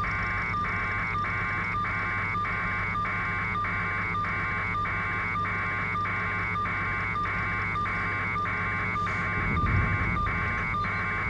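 A repeating electronic buzzing tone, pulsing evenly a little under twice a second, over a steady low hum. The sound sits on the audio feed. There is a brief louder low sound near the end.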